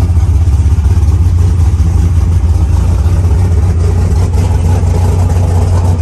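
Chevy big-block V8 race engine of about 623 cubic inches, fitted in a Dodge Ram race truck, idling loudly and steadily with no revving, heard from inside the cab.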